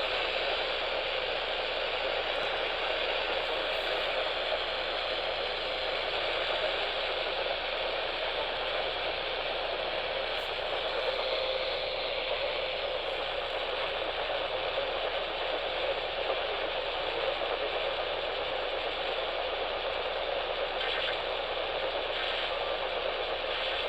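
Steady hiss of static from an AM radio receiver, with no programme audio coming through.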